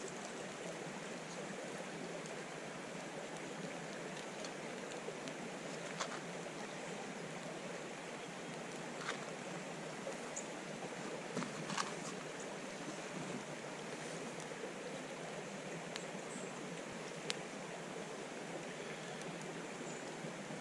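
Steady rush of flowing creek water, with a few sharp clicks and snaps scattered through.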